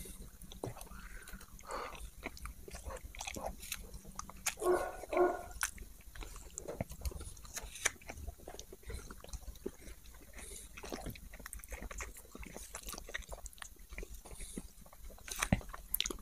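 A person chewing a mouthful of burger close to the microphone: soft, irregular wet clicks and smacks. A short pitched vocal sound comes about five seconds in.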